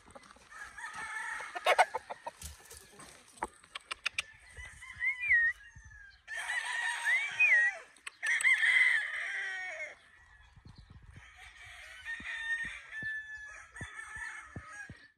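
Roosters crowing several times, in separate crows with short gaps, loudest a little past the middle.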